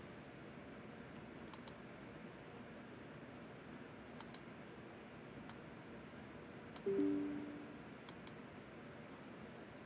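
Computer mouse clicking: several sharp clicks, some of them double clicks, spread through a few seconds. About seven seconds in there is a short low two-note tone that fades over about half a second.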